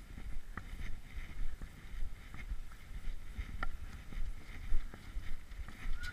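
Wind and handling noise rumbling on a body-worn camera's microphone, with a few faint sharp clicks.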